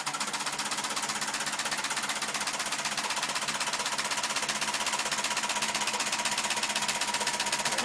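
Homemade four-piston solenoid engine (rare-earth magnet pistons, camshaft and tappet-operated contacts) running fast, making a rapid, even clatter of clicks. The generator load has been disconnected, so the engine is free-running.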